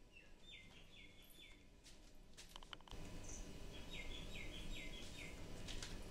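A bird calling faintly in two quick runs of four or five repeated chirps, one near the start and one about four seconds in, with a few faint clicks in between.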